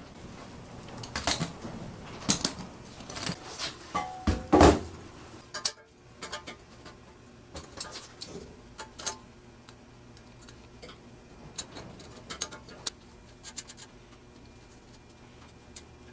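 Irregular metallic clinks and knocks of metal parts and tools being handled, loudest in a run of strikes in the first five seconds with a heavier knock about four and a half seconds in, then lighter ticks.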